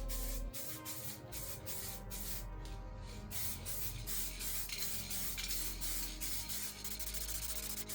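Aerosol spray can hissing as paint is sprayed, with a short break about two and a half seconds in, under background music.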